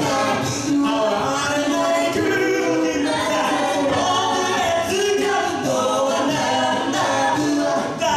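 A cappella group of six singing through handheld microphones and stage speakers, several voice parts moving together in harmony without instruments.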